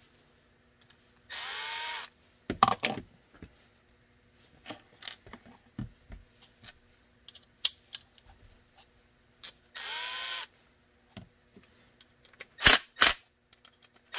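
Cordless drill-driver running in two short bursts of about a second each, several seconds apart, driving the screws that fasten a belt clip onto a holster. Small clicks and knocks of hardware being handled come between the bursts, with a few louder knocks near the end.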